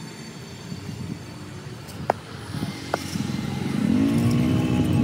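A motor vehicle's engine running, getting louder toward the end, with two light ticks partway through.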